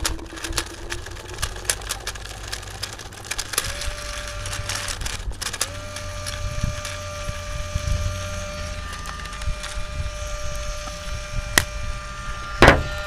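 Dye Rotor paintball loader's motor whining steadily while Reballs, reusable rubber paintballs, click and rattle through its feed with no jams. The whine winds down and stops at the end, just after one loud knock.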